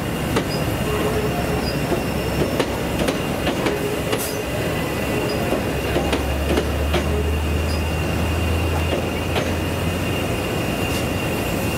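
A passenger multiple-unit train running slowly past on the adjacent track. Its wheels click now and then over rail joints, with a steady high squeal throughout and a low hum that swells for a few seconds in the middle.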